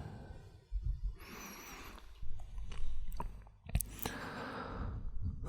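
Close-miked ASMR breathing and sighs from a man, with a few wet lip clicks of kissing about three to four seconds in.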